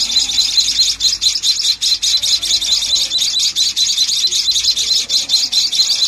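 Nestling songbirds chirping to beg for food, a dense, unbroken chorus of rapid high-pitched calls, many a second.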